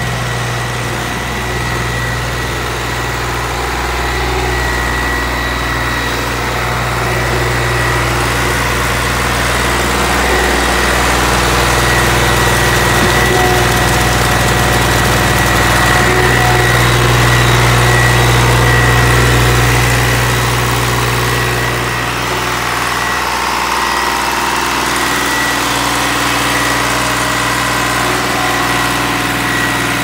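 CIFA 306.7 stationary concrete pump's engine running steadily, with a constant high-pitched whine over a low hum. It gets a little louder through the middle and eases off about two-thirds of the way through.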